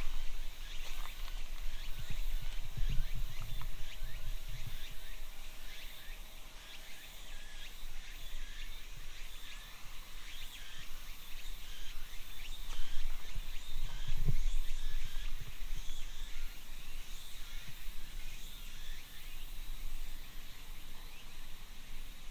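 Outdoor ambience under shrine trees: a steady scatter of short, high chirps from small animals. Low rumbles come about two to five seconds in and again briefly near the middle.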